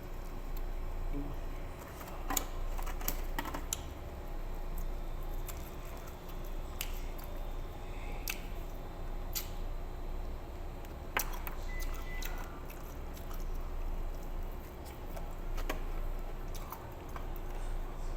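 A person chewing and eating chicken up close, with scattered short clicks and knocks from handling the food and packaging over a steady low hum.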